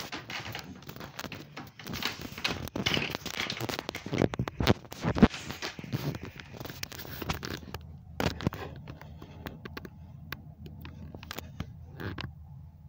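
Rustling and scraping noises full of sharp clicks and crackles, dense for the first seven seconds or so, then thinning to scattered clicks over a faint low hum.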